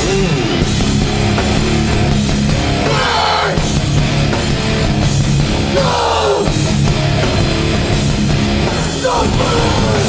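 Hardcore band playing live at full volume: distorted guitars, bass and drums, with a falling sweep that comes back about every three seconds.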